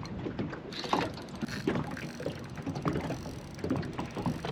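Fishing reel working under load while a hooked mulloway is played: irregular mechanical clicking and gear ticks as line is wound in and pulled against the drag.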